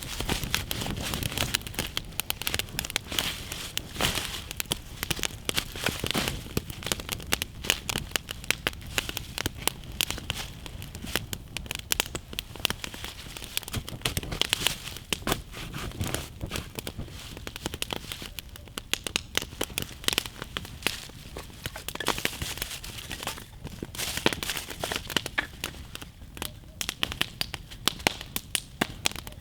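Wood campfire burning, crackling and popping with dense, irregular sharp snaps.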